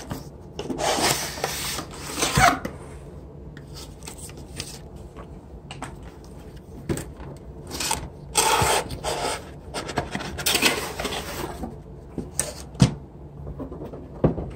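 Cardboard packaging boxes sliding and rubbing against each other as the speaker boxes are pulled out of their carton, in several scraping bursts, with a few sharp knocks as boxes are handled and set down.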